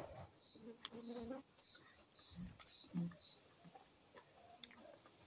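A bird calling a short, high note over and over, about twice a second, six times, then falling silent.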